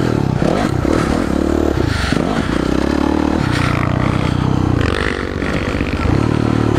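Kawasaki KX450F motocross bike's four-stroke single-cylinder engine being ridden hard, revving up and dropping back several times as the throttle is opened and closed over the track.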